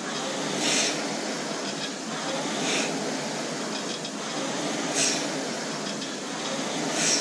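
Concept2 indoor rower's air flywheel whirring steadily, with a surge of rushing air about every two seconds as each drive stroke spins it up again.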